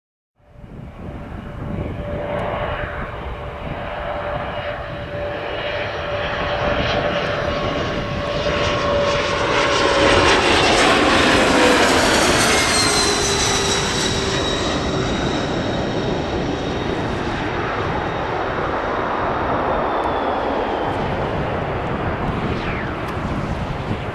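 Twin rear-engined regional jet climbing away on take-off: its turbofans build to their loudest about halfway through. An engine whine drops in pitch as the jet passes, and the noise then settles into a steady rumble.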